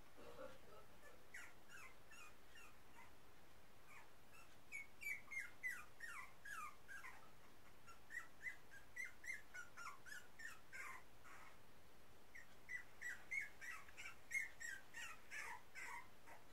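Newborn puppies whimpering and squeaking: short, high cries that each drop in pitch, coming in quick runs with short pauses between.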